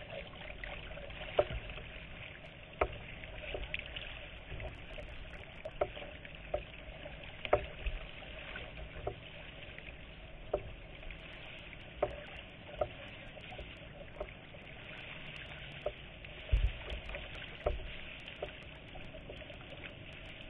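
Choppy lake water lapping and splashing against a kayak, with sharp knocks every second or so.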